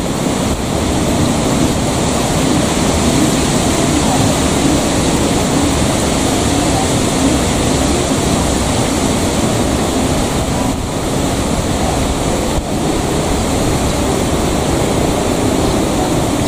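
Steady loud rushing noise of wind buffeting the microphone, flat in level throughout.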